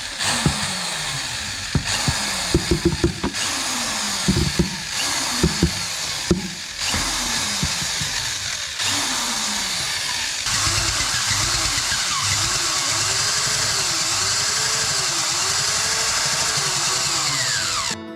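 Electric drill with a mixing paddle stirring tile grout in a bucket, its motor speeding up and slowing down in short runs, with several sharp knocks in the first few seconds.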